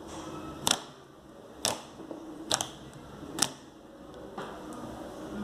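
Butter slime being pressed and squeezed in the hands for ASMR, making sharp clicking pops about once a second, one of them doubled.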